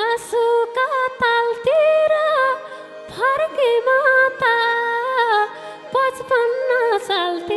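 A woman sings a Nepali dohori folk melody into a microphone. Her voice slides and bends in ornaments between held notes, in short phrases with brief breaks.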